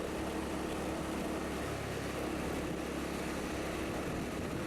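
Scooter engine running at a steady cruising speed with a constant drone, under road and wind noise while riding.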